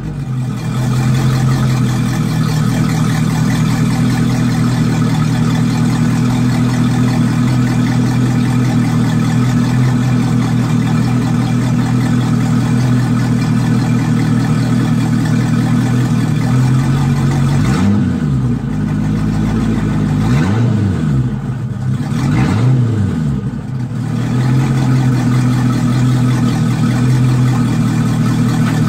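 Volvo Penta sterndrive boat engine idling steadily, just after starting, with three brief revs up and back down about two-thirds of the way through before it settles back to idle.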